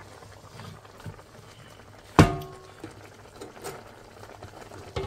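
Beef cooking quietly in a frying pan in its own fat, a faint steady sizzle. About two seconds in, one sharp metallic clink against the cookware rings briefly, and a smaller knock comes near the end.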